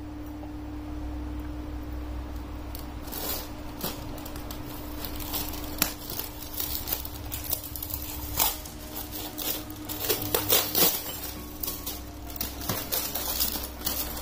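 Hands handling parts and packaging of an HID projector headlamp kit on a tiled floor: scattered clicks, taps and plastic rustles, busier in the second half, over a steady low hum.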